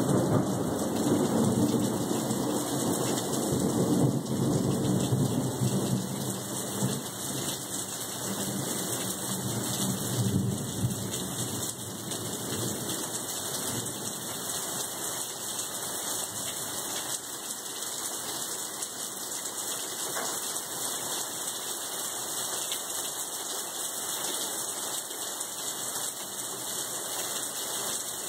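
Thunderstorm: steady heavy rain, with thunder rumbling through the first several seconds and swelling again about ten seconds in, then rain alone.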